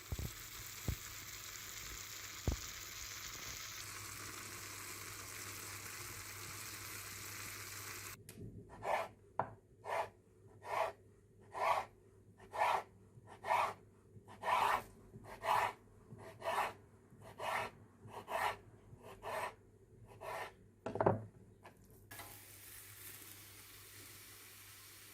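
Food sizzling in a pan with a few light clicks. After about eight seconds come some fifteen scraping strokes, roughly one a second, then a quieter sizzle.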